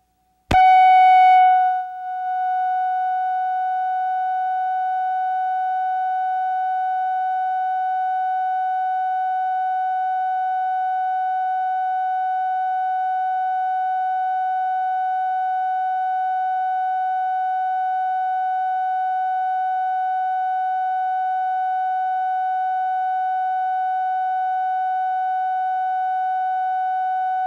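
Videotape line-up reference tone, the steady electronic tone laid under colour bars and slates. It starts with a click about half a second in, is louder for the first second, then holds one unchanging pitch.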